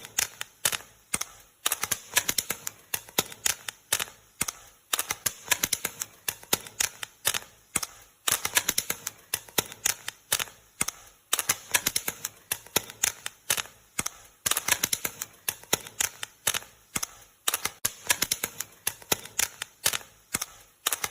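Popcorn kernels popping: many sharp, irregular pops, several a second, running on without letup.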